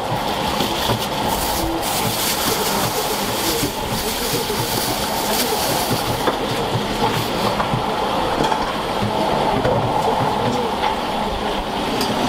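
Working kitchen noise in a soba shop: a steady rush with many light, irregular clicks and clatters running through it.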